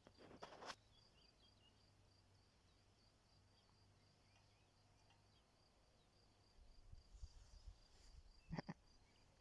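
Faint cricket chirping, a high-pitched chirp repeating about three times a second, over a quiet background. Brief rustles at the start and once near the end.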